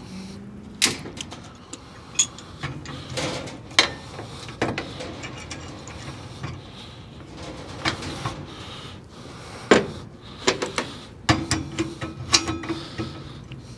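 Metal-on-metal clinks and knocks as an adjustable wrench is set on and worked against the steel gas pipe fitting at a gas valve: irregular sharp clicks and knocks, several of them loud, with handling noise between.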